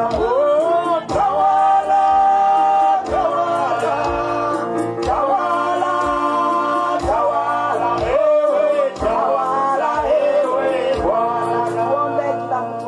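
Gospel hymn sung into a microphone over sustained held chords, with a steady beat about once a second.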